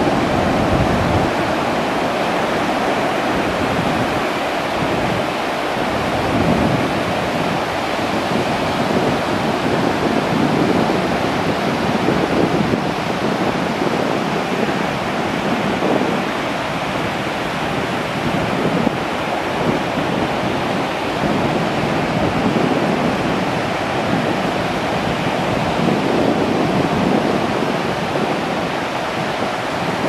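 Ocean surf breaking on a sandy beach: a continuous rush of waves that swells and eases a little as each line of breakers comes in.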